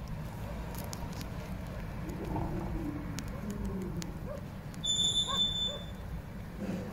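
Outdoor ambience with a low steady rumble. About five seconds in, a high steady whistling tone lasts about a second.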